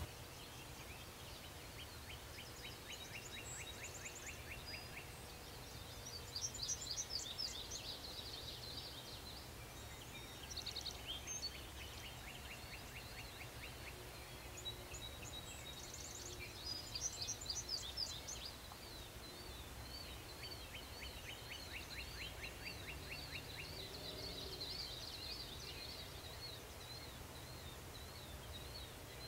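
Songbirds singing outdoors: several bursts of fast, high trills and chirps, loudest about a fifth of the way in and again a little past halfway, then a long warbling song near the end, over a faint steady background.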